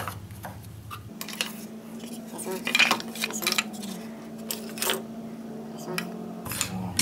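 Offcuts of white baseboard and crown molding being gathered up by hand and knocked together, an irregular run of light clacks and knocks, the loudest about three seconds in and again about five seconds in.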